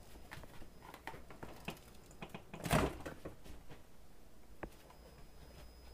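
Refrigerator being opened by hand: scattered light clicks and knocks of handling. A short, louder rustling thud comes a little under three seconds in, and a sharp click follows near the end.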